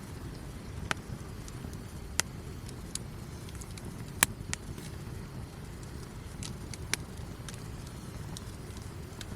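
Wood campfire burning, with a steady low rumble and several sharp pops from the burning wood, the loudest about four seconds in.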